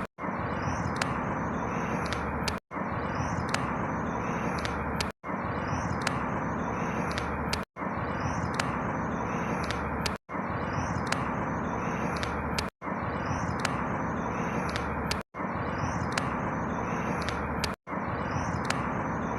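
Outdoor ambience of a steady rushing background with small birds chirping. The same snippet of about two and a half seconds repeats over and over, with a brief dropout between repeats.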